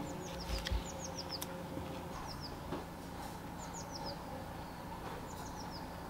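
A small garden songbird calling over and over, in groups of three or four short, high, falling chirps about every second or so. A faint steady hum runs underneath. There is a soft thump just under a second in and a couple of sharp snips of scissors cutting rosemary.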